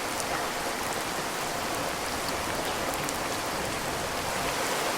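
Steady rain falling, with the odd faint drop ticking on a surface.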